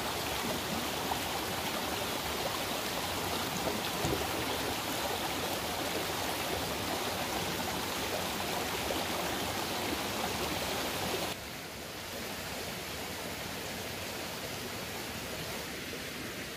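Shallow rocky stream running over stones: a steady rush of water, a little quieter from about two-thirds of the way through.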